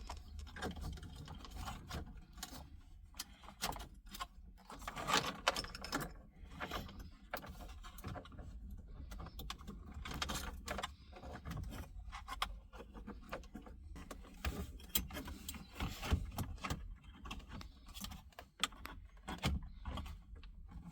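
Car stereo wiring being pushed into the dashboard: loose cables and plastic connectors rattling, clicking and scraping in irregular bursts as the harness is stuffed in behind the head unit.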